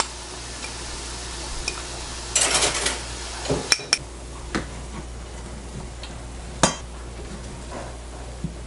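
A spoon scraping and clinking against a dish while spices are mixed: one longer scrape about two and a half seconds in, then a few sharp clinks, over a faint steady sizzle of onion frying in butter and oil.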